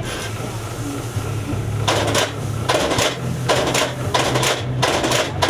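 Shoe-repair machine running with a steady electric motor hum. From about two seconds in come five short mechanical strokes, less than a second apart, as a shoe heel is worked under the machine's head.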